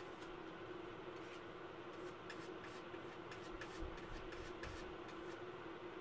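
Quiet room tone: a steady low hum with scattered faint clicks and light scratching, and a couple of soft thumps about four seconds in.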